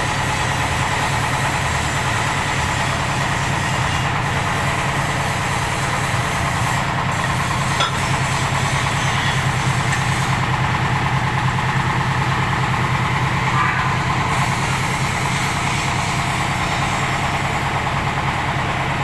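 Engine-driven paving block machine running steadily under test, a continuous pulsing mechanical hum.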